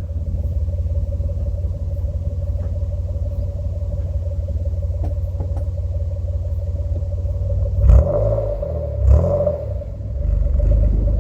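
Mitsubishi FTO's 6A12 MIVEC V6 running with a loud, steady low exhaust rumble. Two short throttle blips about 8 and 9 seconds in, the first the loudest.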